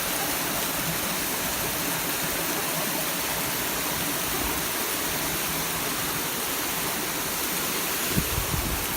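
Steady rush of falling or flowing water. A brief low bump comes about eight seconds in.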